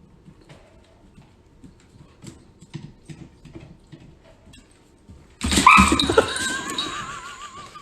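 Faint tapping and rustling, then about five seconds in a sudden loud animal cry that ends in a wavering, trembling held note.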